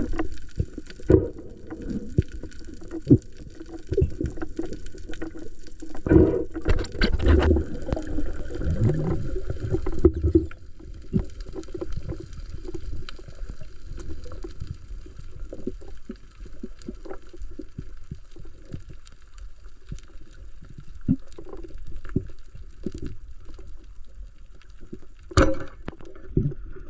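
Water sloshing and gurgling, with many irregular knocks and thumps, heaviest about six to ten seconds in.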